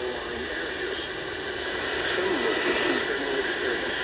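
Radio broadcast received with heavy static: a dense hiss and crackle with a faint, garbled voice underneath and a steady high whine.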